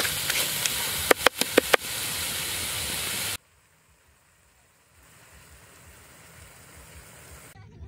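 Minced snake meat with lemongrass and chilies sizzling as it is stir-fried in a wok, with a few quick clicks of the wooden spatula against the pan about a second in. The sizzle cuts off suddenly a little under halfway through, and only a faint hiss slowly comes back.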